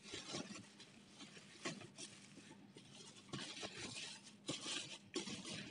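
Plastic bubble wrap rustling and crinkling faintly as hands pull it off a boxed product, with irregular small crackles.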